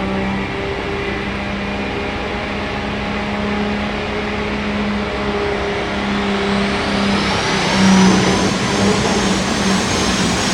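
Super stock diesel 4WD pulling truck running flat out under load on a pull. Its engine holds a steady, loud note, and from about two-thirds of the way in a high whine climbs steadily in pitch as the run goes on.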